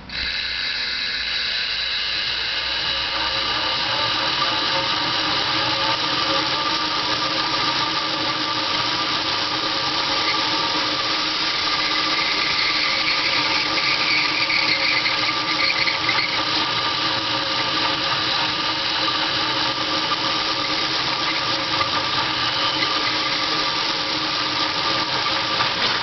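NetGain WarP 9 series-wound DC electric motor spinning at a steady speed, with a growling, squealing metal-on-metal grind and some squeaking. It starts suddenly and stops near the end. The owner suspects the growl comes from worn shaft bearings at the commutator end, and puts the squeaking down to parts rusted by winter road salt.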